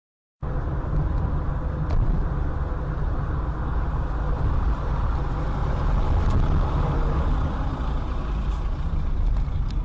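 Steady low rumble of engine and road noise inside a car, as picked up by a dashcam, with city traffic around it; it cuts in abruptly after a moment of silence.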